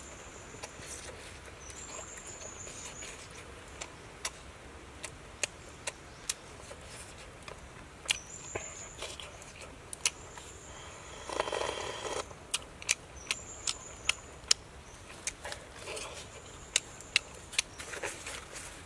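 Close-up eating sounds: irregular wet lip smacks and mouth clicks as food is eaten by hand and chewed. A thin, high call recurs three times in the background.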